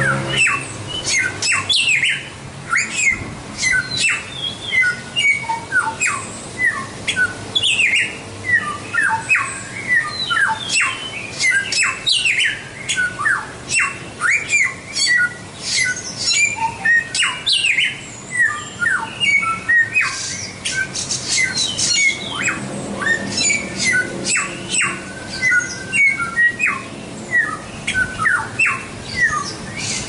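Samyong songbird singing a long, unbroken stream of rapid, varied chirps, quick rising and falling whistles and harsher squawky notes. This is a masteran recording of the kind Indonesian bird keepers use to teach song to caged birds.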